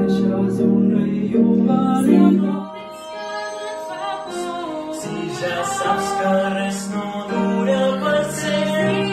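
Male and female voices singing a song together with piano accompaniment.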